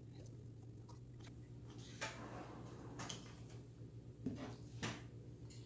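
A few light knocks and clatters of a plastic cutting board being handled and lifted off a kitchen countertop, over a low steady hum.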